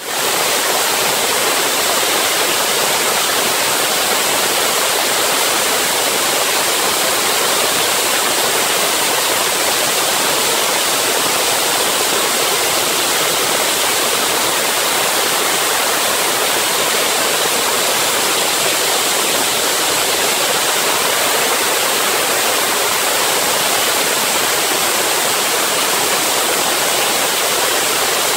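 Multi-blade stone cutting machine's large water-cooled diamond saw blade cutting through a stone block, with cooling water spraying over the cut: a loud, steady hiss that does not change.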